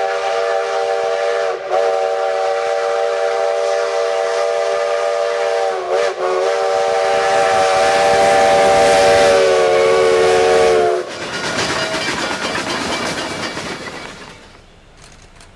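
Steam locomotive chime whistle sounding a chord in three long blasts, the first two broken off by a brief dip in pitch. It cuts off sharply about eleven seconds in, leaving steam hiss and the rumble of the train, which fade out near the end.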